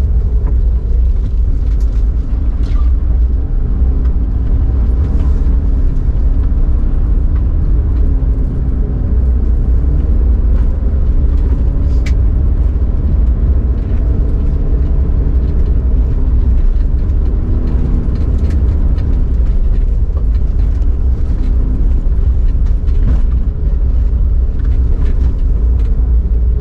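Car engine and road rumble heard from inside a moving car, steady and loud, with the engine note slowly rising and falling.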